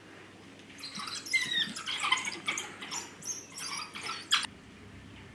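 African wild dogs twittering: a burst of high-pitched chirps and squeaks for about three seconds, the excited calls a pack makes while feeding at a kill.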